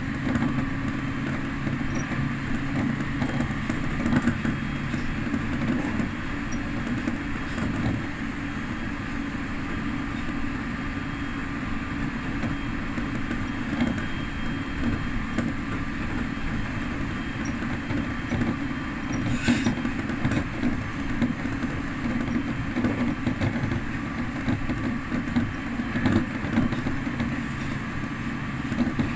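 Electric train running along the track, heard from inside the cab: a steady running rumble with occasional clicks from the wheels. A low hum in the rumble stops about five seconds in.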